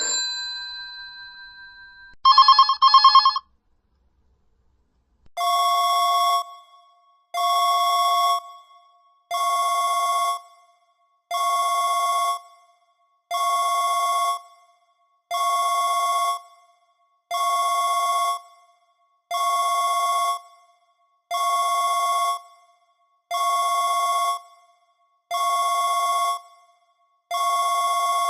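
Ringtones of an i-mobile Hitz 315i mobile phone: a chime fading out at the start, a short, loud warbling tone in two pulses about two seconds in, then after a brief silence an electronic two-tone ring repeating about every two seconds, each ring lasting about a second.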